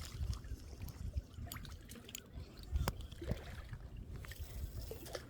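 Faint water lapping and trickling at the shoreline, with a few small scattered clicks and a low wind rumble on the microphone.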